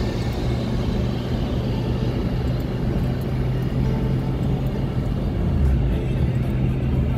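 Car driving, heard from inside the cabin: steady engine and road noise with a constant low drone.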